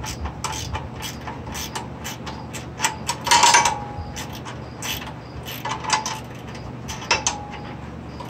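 A hand wrench working a muffler bracket bolt on a riding mower: irregular metallic clicks and clinks, with a louder clank about three seconds in and two more near six and seven seconds. The bolt is not snugging up, and its threads are probably worn.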